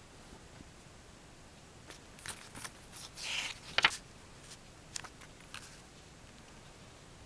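A stapled glossy CD lyric booklet having a page turned by hand: a crisp paper rustle about three seconds in that ends in a sharp snap. A few lighter paper clicks come before and after it.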